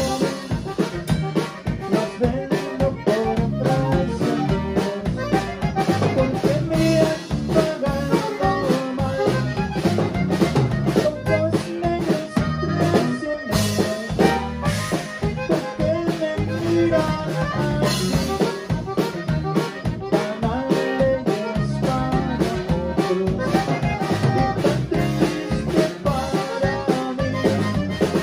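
Live conjunto band playing an instrumental passage: a button accordion leads over electric bass, a drum kit and an acoustic guitar, with a steady dance beat.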